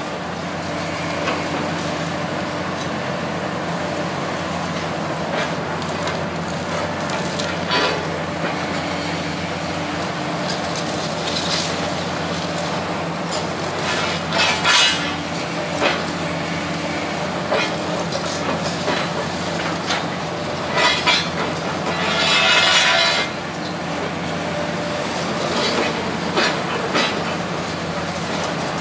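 Hydraulic excavator engine running steadily while its concrete-crusher jaws bite into a reinforced-concrete wall, with several short bursts of crunching, cracking concrete, the longest about three-quarters of the way in.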